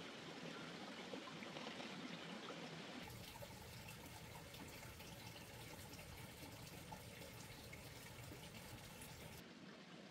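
Faint running water, a steady trickling and pouring hiss, whose texture changes abruptly about three seconds in and again near the end.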